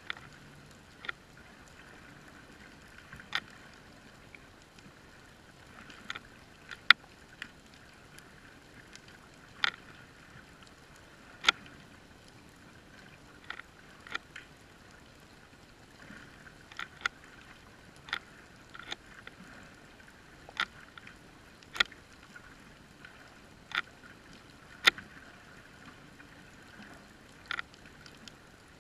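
Sharp clicks and ticks at irregular intervals, roughly one every second or two, over a faint steady hiss.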